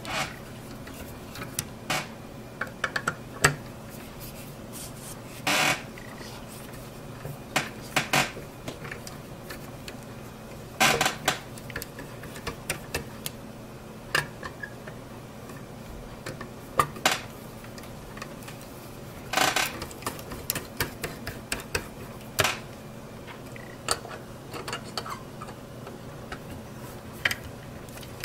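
Small Phillips screwdriver backing out the spring-loaded screws of a graphics card's GPU heatsink bracket: scattered metallic clicks and short scrapes, a few of them lasting about half a second, over a faint steady hum.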